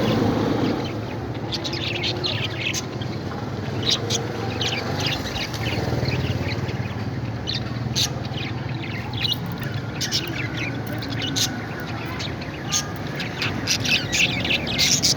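Parrots chirping and squawking in many short, sharp calls that crowd together near the end, over a steady low hum.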